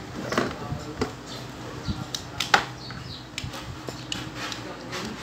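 Scattered clicks and light knocks from a small portable radio and its power cord being handled, the sharpest knock about two and a half seconds in.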